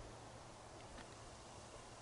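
Near silence: a faint steady outdoor hiss with a couple of faint ticks, one about a second in.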